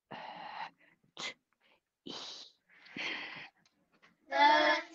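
A person's soft breathy sounds close to a headset microphone: four short puffs about a second apart, then a brief burst of voice near the end.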